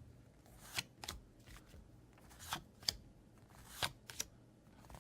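Yu-Gi-Oh trading cards being flicked and slid past one another by hand as a freshly opened pack is sorted through: short swishes and snaps, about six in all, coming in pairs.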